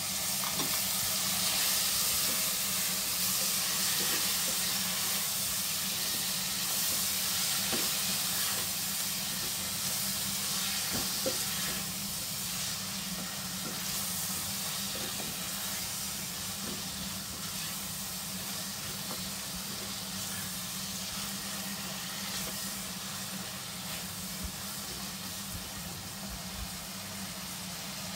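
Chopped tomatoes, shallots and green chillies sizzling in hot oil in a nonstick pan, with occasional light scrapes of a silicone spatula as they are stirred. The sizzle slowly eases a little as the tomatoes go in and cool the oil, over a steady low hum.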